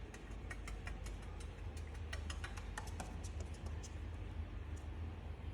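Rapid, irregular sharp clicks and ticks, several a second, over a low steady hum.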